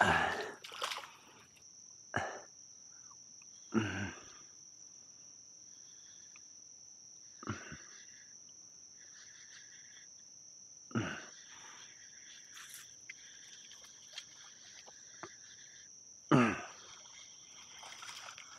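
Insects trilling on one steady high note, with a few brief sudden sounds every few seconds. The loudest of these come near the start and about sixteen seconds in.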